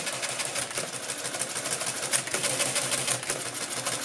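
Electric Mercedes Euklid Model 21 mechanical calculator running an automatic division. Its motor-driven works make a rapid, even clatter of calculating cycles as the carriage steps along and the counter builds up the result.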